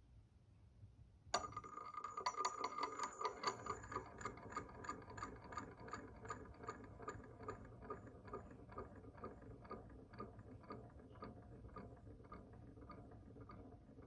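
A small brass object strikes a hard surface with a bright metallic ring about a second in. It then ticks against the surface in an even rhythm of about three ticks a second, which slowly fades and slows.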